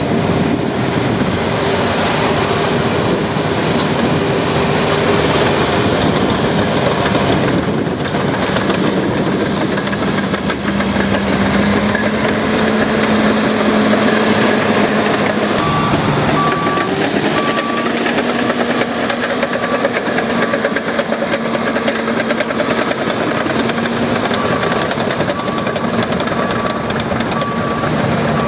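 Heavy diesel construction machinery working: engines running under load with a continuous metallic clatter, and a reversing alarm beeping steadily from about halfway through.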